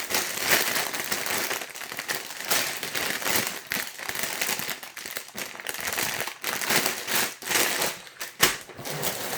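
Plastic LEGO parts bags crinkling and rustling as they are handled, with a sharp knock a little before the end.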